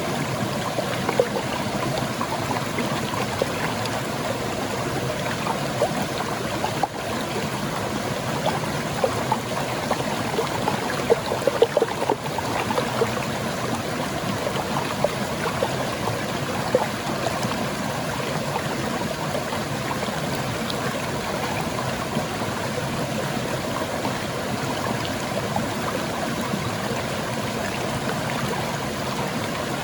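Water pouring over rocks in a small rocky waterfall on a stream: a steady rush of falling water with brief splashes scattered through it.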